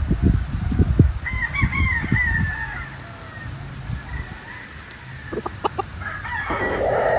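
Gamefowl roosters crowing: one long crow about a second in, a fainter one mid-way and another starting near the end. A low rumble runs under the first couple of seconds.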